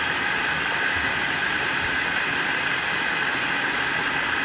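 Electric food processor motor running steadily, its blade spinning through a creamy sauce, with a steady high motor whine over a whirring hiss.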